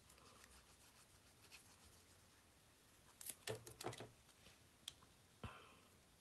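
Near silence broken by faint handling of paper die-cuts and a glue bottle on a craft mat: a cluster of soft taps and clicks about three and a half seconds in, then one sharper knock near the end.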